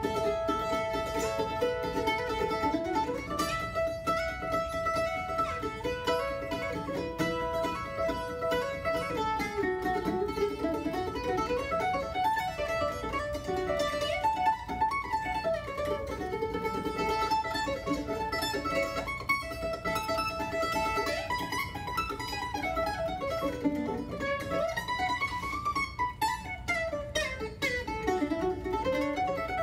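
Solo mandolin played live: picked melodic runs that climb and fall, with some notes left ringing.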